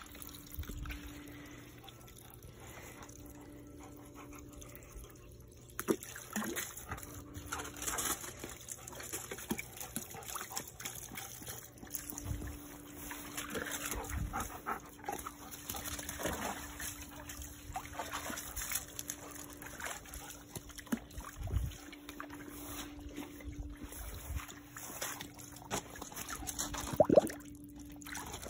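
Dogs moving about and splashing in a plastic kiddie pool, with water trickling and sloshing. There are many short sounds throughout, and the loudest comes near the end.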